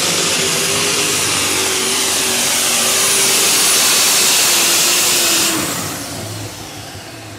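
Unlimited super stock pulling tractor's engine at full power under load, loud, with a thin high whistle over it. About five and a half seconds in the engine comes off power and the sound drops to a lower, quieter rumble as the pull ends.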